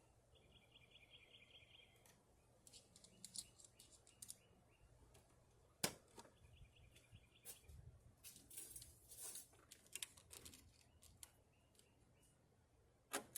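Near silence with faint scattered clicks and scrapes of a screwdriver and hand tools being worked, one sharper click about six seconds in. A faint high chirping sounds twice, near the start and a little past the middle.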